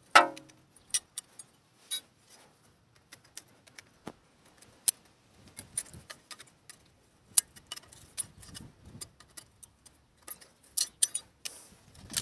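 Metal clicks and clinks of rear brake pads and their spring clips being worked loose from the caliper carrier and handled, coming irregularly. The sharpest clink, with a brief ring, is right at the start.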